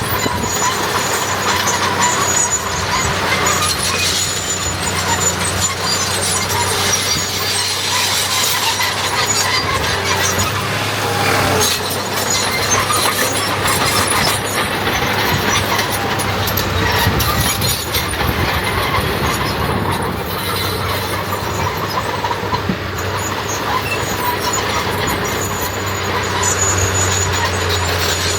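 Diesel earthmoving machinery, a small crawler bulldozer and dump trucks, running steadily with a constant low engine drone, with a thin high whine coming and going over it.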